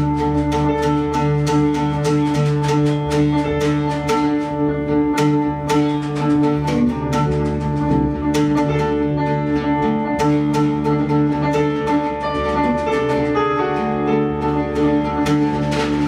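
Oud played with a plectrum in quick plucked notes, several a second, over a steady held drone.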